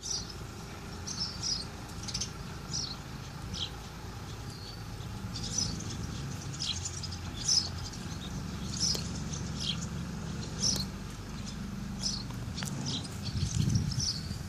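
Small birds chirping over and over in short, high calls, over a steady low rumble.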